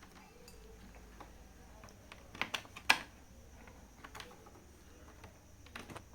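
A few scattered light clicks and taps from handling an external USB keyboard and plugging it into a laptop's USB port, with a quick cluster of clicks about two and a half to three seconds in, the last one the loudest.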